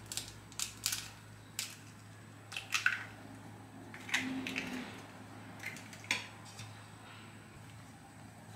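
An egg being cracked open over a stainless steel mixing bowl of flour: a run of short, sharp clicks and taps of eggshell and a silicone spatula against the metal bowl, thinning out in the last couple of seconds.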